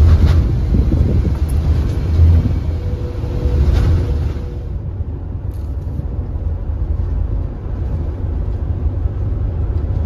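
Road noise inside a moving vehicle's cabin: a steady low drone of engine and tyres with a hiss on top. The hiss drops away about halfway through, leaving the low drone.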